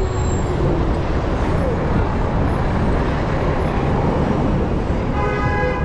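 Busy city street ambience: a steady rumble of traffic with crowd chatter. A short pitched tone sounds near the end.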